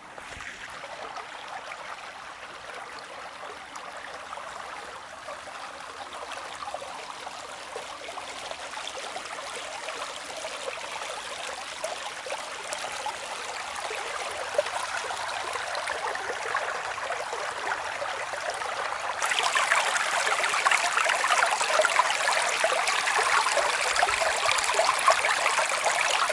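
Shallow forest stream running over stones and gravel, slowly growing louder; about 19 seconds in it jumps louder and brighter, heard from right at the water's surface.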